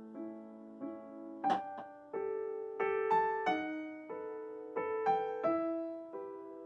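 Background music: a gentle piano melody of single struck notes, each fading before the next, with a sharp click about a second and a half in.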